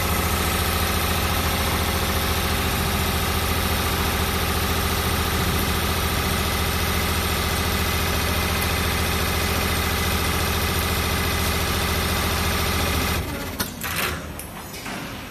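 Six-spindle CNC needle winding machine running at high speed: a steady mechanical hum with many fixed tones. It stops abruptly near the end, followed by a few sharp clicks.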